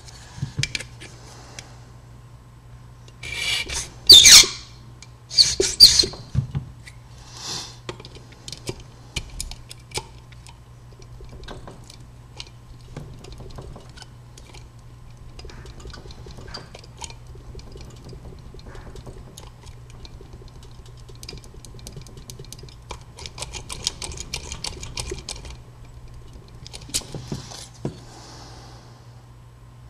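Small metal handling sounds while impressioning a wafer padlock: a round file rasping on a brass key blank and the blank being worked back and forth in the lock, with scraping, rubbing and light clicking. A few sharp metal clatters come a few seconds in, and a stretch of fast ticking comes a little before the end.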